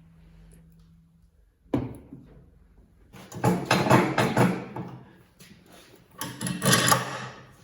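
A sharp knock, then two stretches of rattling, scraping clatter from hard parts being handled.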